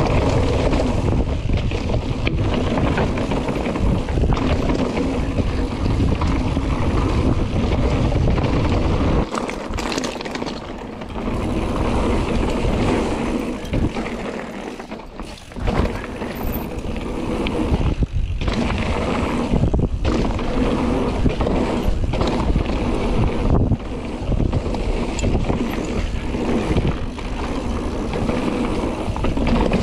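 Mountain bike descending a downhill trail: wind rushing over the microphone, with tyre noise and frequent knocks and rattles from the bike over rough ground. It eases briefly twice in the middle.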